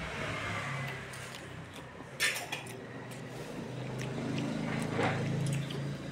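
Brown paper food wrapping rustling and crinkling as rice is picked up by hand from a banana leaf. There is a sharp crackle about two seconds in and another around five seconds, over a steady low hum.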